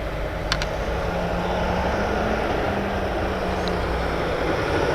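Steady road-traffic noise: trucks going by, with a low, held engine hum over a constant rumbling wash.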